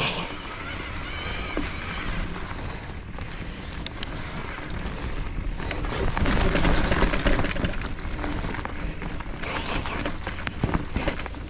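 E-mountain bike riding through a muddy trail: a steady rush of tyre and trail noise with scattered rattles and clicks, getting louder about six seconds in.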